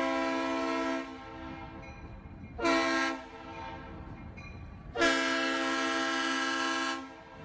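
Norfolk Southern diesel locomotive's air horn sounding for a grade crossing: a long blast, a short one about three seconds in, then a second long blast of about two seconds, each a steady chord of several tones.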